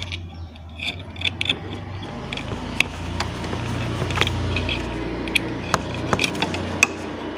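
Light clicks and rattles of a motor-scooter horn and its wiring connector being handled and plugged in, over a steady low hum.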